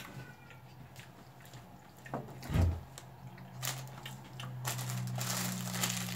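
Plastic snack wrapper rustling and crinkling, starting a little before the end, over a steady low hum, with a single dull thump on the table about two and a half seconds in.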